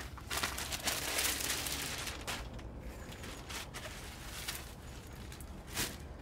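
Plastic packaging crinkling and rustling as a new quilted chair warmer is pulled out of its bag: a dense stretch of crackling in the first two seconds, then scattered separate crinkles.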